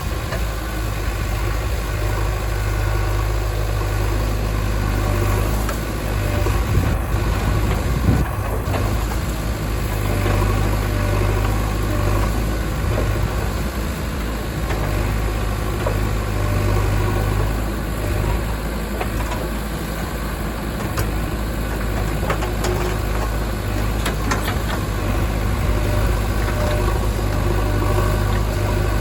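Heavy diesel engine running steadily at a low, even speed, with two brief louder knocks about six and eight seconds in.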